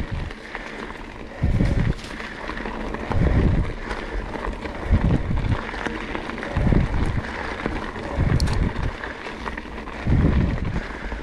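Mountain bike rolling along a dirt trail: steady tyre and trail noise with a few light clicks, and low wind buffets on the microphone about every one and a half to two seconds.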